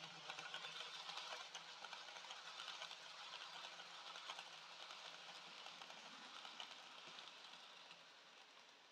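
Dapol N gauge HST model train running past on the track: a faint, fast clicking rattle of the small wheels and running gear, fading away near the end.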